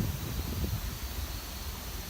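Steady rushing roar of a river in flood, swollen into a torrent by typhoon rain, with irregular low buffeting from wind on the microphone.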